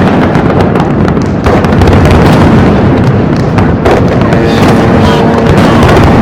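Aerial fireworks display going off in a loud, unbroken barrage of bangs and crackles.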